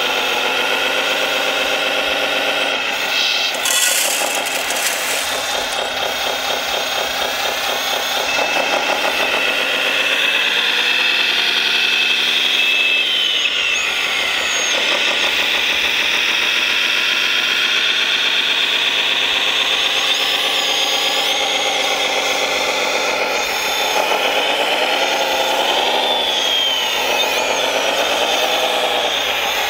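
1/14-scale RC hydraulic wheel loader running, its motor and hydraulic whine mixed with an engine sound that rises and falls in pitch repeatedly as it drives and works the bucket.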